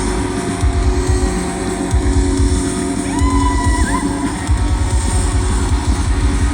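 Live rock band playing loud, with heavy bass and drums. A single high held note comes in about three seconds in and stops a second later.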